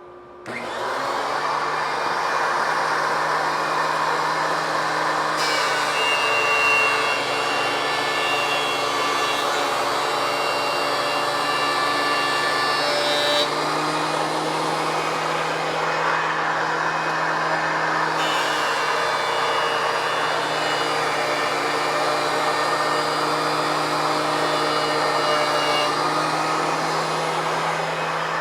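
Benchtop thickness planer starting up and running with dust collection, as boards are fed through the cutterhead: two passes, each adding a harsher, higher cutting noise for several seconds over the motor.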